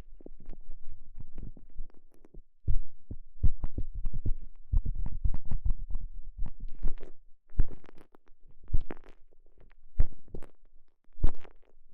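Microphone rubbed and pressed inside a TENGA Egg's soft, stretchy elastomer sleeve: irregular muffled squishing with low thumps against the mic, coming in uneven bunches.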